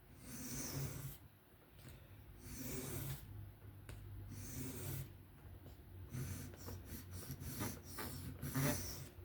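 Knife blade of 154CM steel being stroked freehand across a sharpening stone, a rasping scrape with each pass: a few slow strokes of about a second each, then a run of quicker strokes from about six seconds in. The strokes are raising a burr along the edge.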